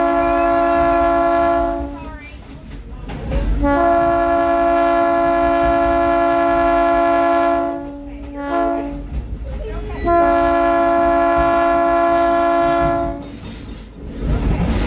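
Train air horn sounding the grade-crossing signal: long blasts, a short one and a final long one, each a steady two-note chord. Between blasts the low rumble and clatter of the rolling cars.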